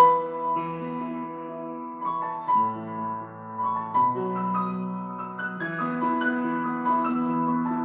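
Solo piano playing a slow piece of sustained chords with a melody on top; about two and a half seconds in the harmony drops to a deeper bass chord, which gives way again near six seconds.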